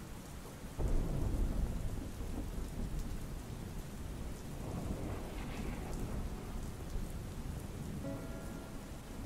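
Pouring rain falling steadily, with a roll of thunder breaking in about a second in: a deep rumble that fades away over the next few seconds.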